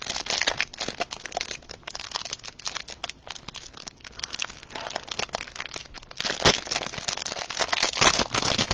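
Plastic wrapper of a Prizm football hanger pack of trading cards being torn open and handled, crinkling steadily, with louder rustles near the end.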